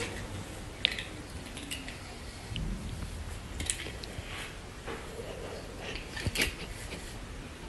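Pet grooming brush scratching faintly through a cat's fur, with a few short, sharp clicks as the brush is handled.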